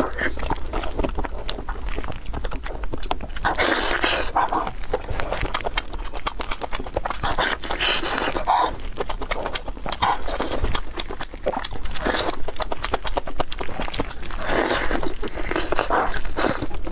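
Close-up wet chewing and lip-smacking on saucy braised beef ribs: a dense run of small sticky clicks, with a few louder slurps.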